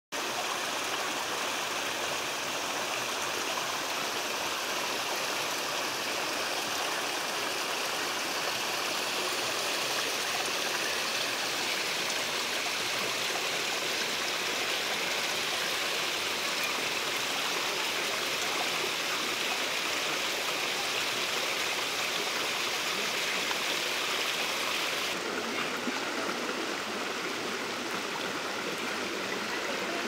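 Small cascade of water running over rocks, a steady rush and splash. About 25 seconds in it changes abruptly to a fuller, lower rush with less hiss.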